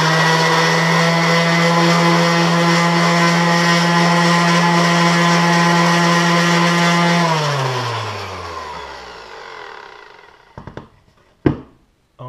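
DeWalt random orbital sander running at a steady pitch with a CD pressed against its sanding pad. About seven seconds in it is switched off and winds down, falling in pitch and fading. A couple of knocks follow near the end, the last one sharp.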